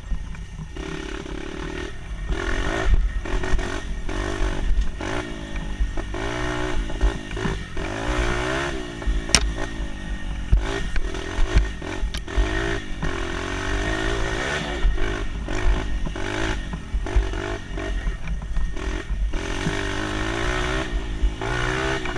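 Dirt bike engine being ridden, its pitch rising and falling again and again as the throttle is opened and closed, over a constant low rumble.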